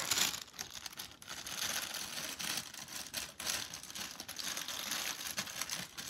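Clear plastic packaging crinkling and crackling without a break as it is pulled open to take out a pop-it fidget toy.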